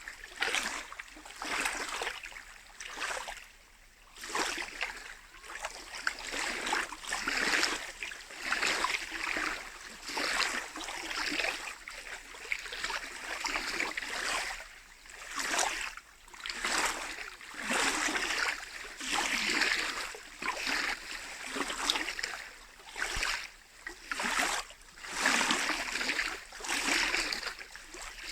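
Small lake waves lapping and splashing against the shore, in a quick, irregular rhythm of about one swell a second.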